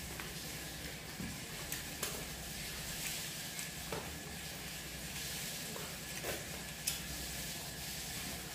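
Hand-eating sounds: fingers mixing and scooping rice on a steel plate, with chewing and a handful of short, sharp clicks and smacks over a steady hiss.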